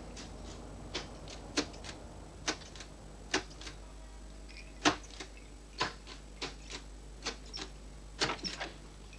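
Perkins Brailler being typed on: irregular mechanical clacks as the keys are pressed, one or two a second, the loudest about five seconds in.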